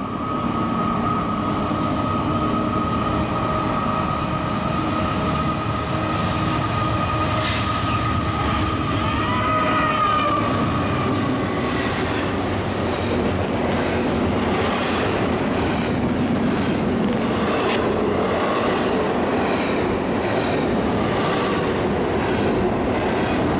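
Freight train passing close by. A steady whine from the approaching locomotives bends in pitch as they go past, and then double-stack container cars roll by with a rumble and regular clacks of wheels over the rail joints.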